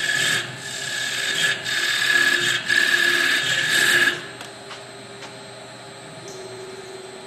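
Vertical CNC wood lathe cutting a turned wooden workpiece: a high whine with cutting noise in uneven surges, which stops about four seconds in, leaving the machine running on with a quieter, lower hum.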